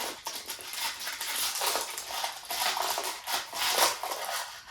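Rustling and crinkling of food-delivery packaging being handled and unwrapped, in several irregular bursts.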